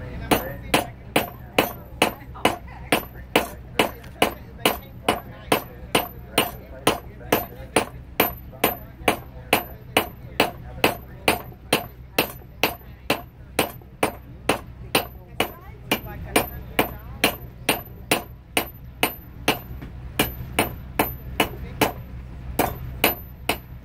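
Blacksmith's hammer striking hot high-carbon file steel on an anvil, a steady run of blows at about two a second, each with a bright ringing ping.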